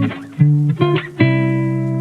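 Instrumental background music: a melody of short notes, then a long held note starting a little past the middle.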